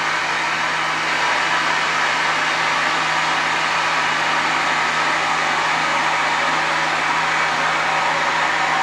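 CNC mill cutting a full-width slot in cast iron with a 3/4-inch Kennametal HARVI I TE end mill at 1528 rpm: a steady, even machining noise that does not change.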